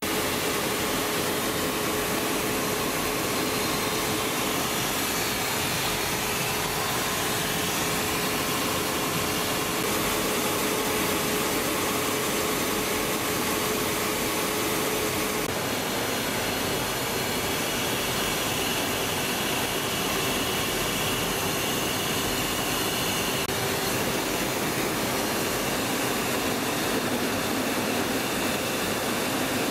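Steady jet noise heard inside a Tornado GR4's cockpit in flight: the rush of airflow over the canopy mixed with the run of its two RB199 turbofans, carrying a steady hum. The character of the noise shifts slightly about halfway through.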